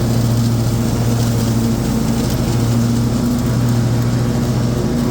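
Husqvarna RZ5424 zero-turn mower's 24 hp Kohler engine running steadily at full throttle with the 54-inch three-blade deck engaged, cutting thick grass under load without bogging down.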